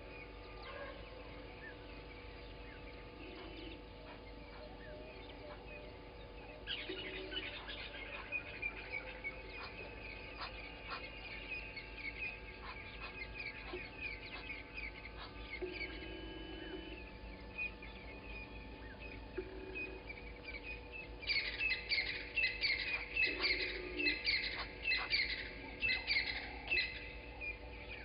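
Morning bird chorus at a waterhole: several wild birds chirping and calling, growing into a louder, busier burst of rapid chattering calls about two-thirds of the way in. A short low call repeats every few seconds underneath.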